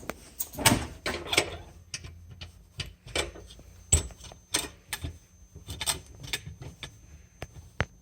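A series of irregular clicks and knocks, some sharper and louder than others, with no regular rhythm.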